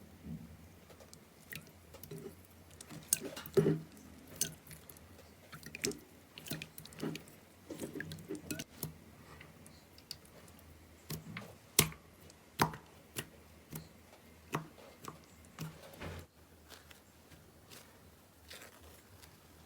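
Slime being squeezed and pressed by hand: irregular wet squishes with sharp little pops and clicks.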